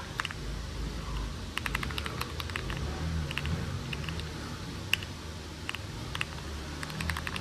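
Typing on a Lucky65 v2 mechanical keyboard fitted with Akko clear polycarbonate ASA-profile keycaps: key clacks in short, irregular runs, the sharpest one about five seconds in, over a faint low hum.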